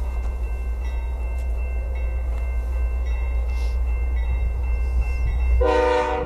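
Distant Canadian Pacific diesel locomotive sounding its air horn as it approaches: faint horn notes come and go, then a short, loud blast near the end. A steady low rumble lies under it all.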